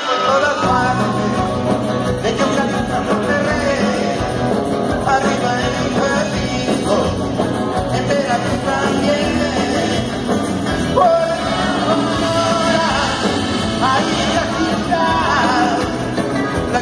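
Live band playing rock and roll, with electric guitars, saxophone and drums.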